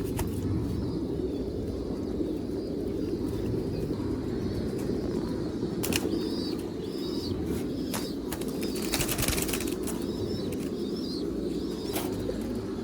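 Pigeons flapping their wings in short bursts, with a few sharp clatters about six, eight, nine and twelve seconds in, over a steady low background. A few short high chirps come through between them.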